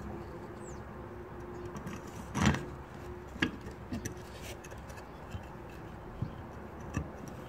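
Handling noise from the plastic and copper parts of a plating rig being turned and fitted together by hand: scattered small clicks and taps, with one louder knock about two and a half seconds in.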